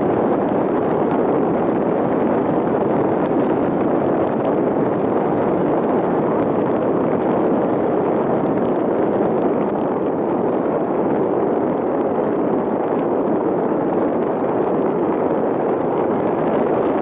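Paddle wheels of the 1913 Escher Wyss paddle steamer Gallia churning the lake water: a loud, steady splashing rush with no break.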